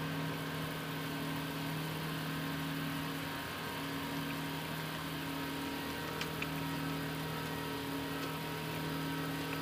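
Steady hum of an airliner's engines and airflow heard on the flight deck during the climb after take-off: two steady low tones over a hiss. A couple of faint clicks come about six seconds in.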